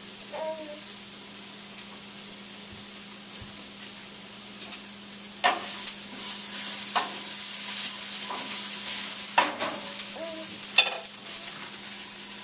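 Food sizzling in a pan, starting about five and a half seconds in, with a few sharp clicks of a utensil stirring against the pan.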